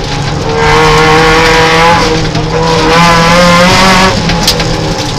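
Peugeot 309 rally car's engine running hard at high revs under load, heard from inside the cabin, its pitch holding and wavering as the car is driven through the bends.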